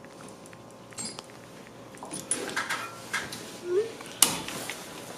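Metal hand tools and sockets clinking and clattering as they are handled, with one sharp clank about four seconds in.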